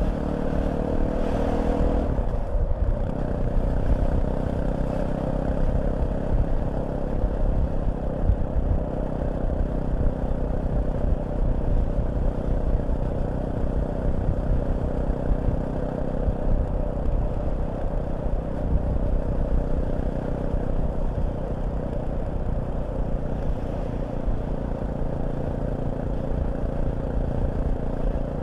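Fantic Caballero 500 single-cylinder motorcycle engine under way. It pulls with a rising note for about two seconds, breaks off briefly, then runs steadily at cruising speed over a heavy low rumble.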